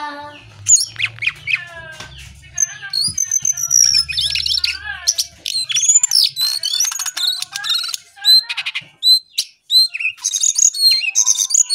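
A caged male jongkangan (a small brown babbler-type songbird) singing: a fast, varied string of sharp chirps, up-and-down whistles and quick trills, with hardly a break.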